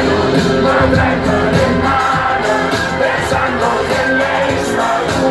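Live concert music played loud through the venue's sound system, with a steady beat and many voices singing along.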